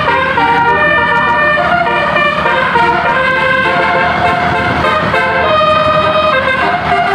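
Basuri musical air horn playing a tune: loud held notes, several tones together, stepping up and down in pitch one after another.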